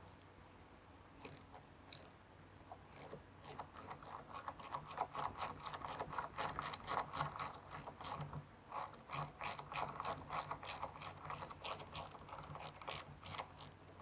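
A hand ratchet wrench clicking in quick, even runs of about five clicks a second, with short pauses, as fasteners are turned out of a reciprocating saw's metal gear housing.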